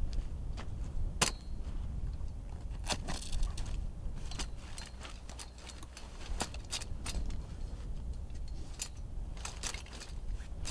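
Folding camp chair being unfolded and set up: its metal frame clicks and rattles in a string of irregular sharp clicks, over a steady low rumble.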